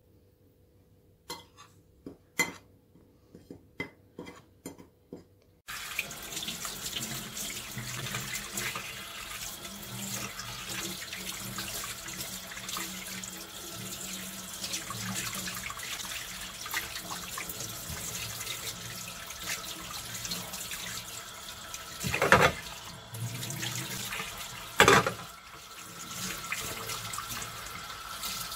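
A few light clinks of a metal spoon against a porcelain plate as flour and salt are stirred, then a kitchen tap runs steadily into a stainless steel sink while raw sole fillets are rinsed under it, with two louder thumps near the end.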